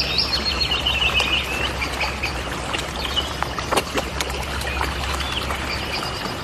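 Small birds chirping in quick runs, strongest in the first second or so and then sparser, over a steady low hum and a few soft clicks.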